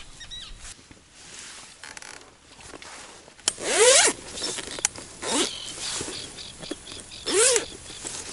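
A zipper on a fishing-gear case being pulled open in three quick strokes, about three and a half, five and seven and a half seconds in, each with a short rising and falling rasp.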